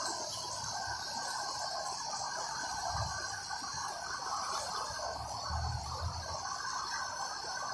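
Steady rush of a river in flood: fast, swollen floodwater running as an even wash of water noise with a high hiss over it. There are low bumps on the microphone about three seconds in and again near six seconds.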